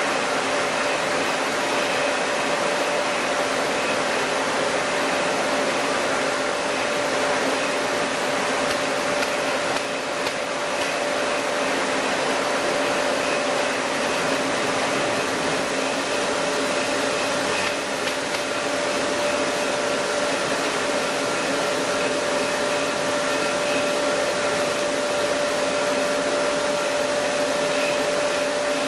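Chili powder milling machinery running steadily: a constant whirring motor-and-fan noise with a steady whine held on one pitch.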